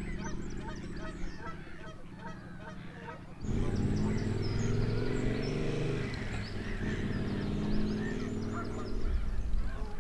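Geese honking repeatedly, with a motorcycle's parallel-twin engine running underneath. The engine gets louder at about three and a half seconds in.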